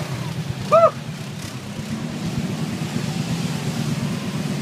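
A four-wheel-drive ATV engine running steadily, with a brief loud pitched call rising and falling about a second in.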